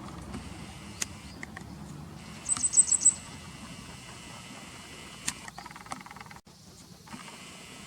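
Grey wagtail calling: a quick run of about five sharp, very high notes about two and a half seconds in, with a few faint clicks around it.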